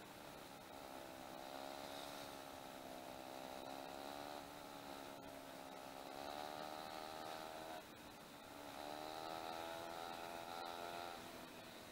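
Dirt bike engine running while riding, heard faintly from the bike itself; its note dips and climbs again about three times as the throttle is eased and reopened.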